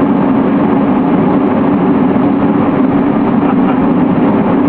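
Steady aircraft engine and airflow drone heard from inside the cabin while descending on approach to landing, even and unbroken, strongest in a low hum.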